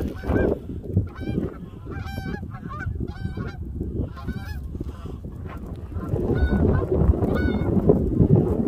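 A flock of geese honking in flight overhead, many short calls in quick succession. A low rumble runs underneath and grows louder about six seconds in.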